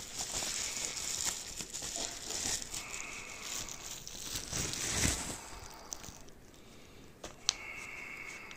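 Plastic bubble wrap crinkling and rustling as it is handled and pulled off a small cardboard box, busiest for the first five seconds, then dying down, with a single sharp click about three-quarters of the way through.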